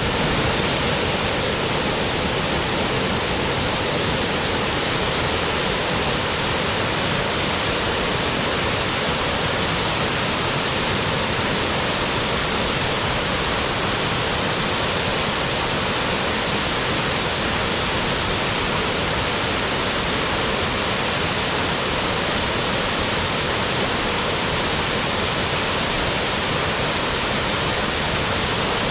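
A waterfall's steady, unbroken rush of falling water.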